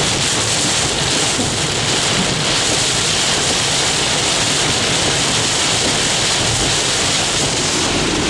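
Heavy rain and wind on a vehicle on the move, a steady rushing hiss.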